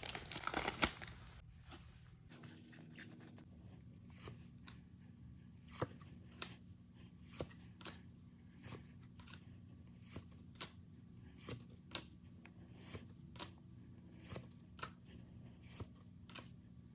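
Pokémon card booster pack's foil wrapper crinkling and tearing open for about the first second and a half. Then the cards are flicked through one at a time, a short click every half second or so.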